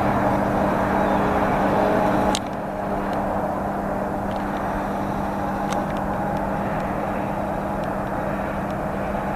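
Steady roar of distant road traffic with a low steady hum under it. A click comes about two and a half seconds in, after which the roar is slightly quieter.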